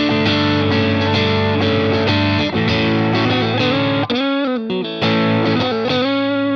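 S-style electric guitar with single-coil pickups played through an amp: chords struck in a steady rhythm, then a brief run of sliding notes about four seconds in, settling into one held chord.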